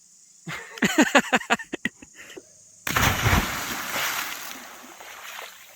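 A person calls out, then about three seconds in comes one big splash that fades over a couple of seconds, like a body plunging into the sea.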